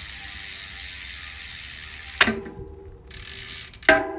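Mountain bike freehub ratcheting in a fast, steady buzz as the rear wheel spins. The buzz is broken twice, about two and four seconds in, by a sharp metallic hit that rings briefly.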